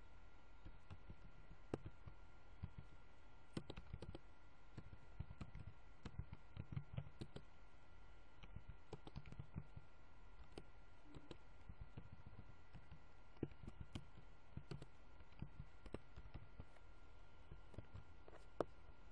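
Scattered clicks of a computer mouse and keyboard, irregular and sometimes in quick runs, over a faint steady electrical hum.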